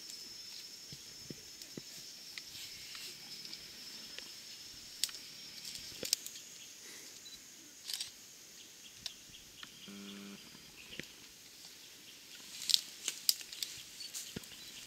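Rustling and snapping of trampled leafy stems as mountain gorillas shift about in them, scattered and busiest near the end. A steady high insect buzz runs over the first six seconds, and a brief low grunt comes about ten seconds in.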